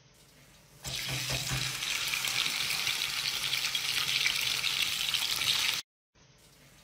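A piece of raw meat sizzling in hot oil in a nonstick frying pan, a steady hiss that starts suddenly about a second in with a brief low thump and cuts off suddenly about a second before the end.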